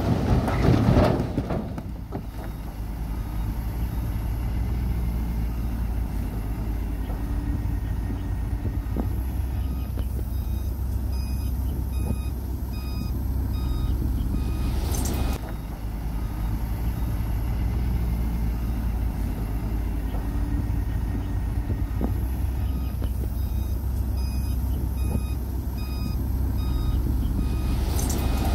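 Heavy earthmoving machinery's diesel engine running steadily, with a reversing alarm beeping repeatedly in two stretches, about a third of the way in and again near the end.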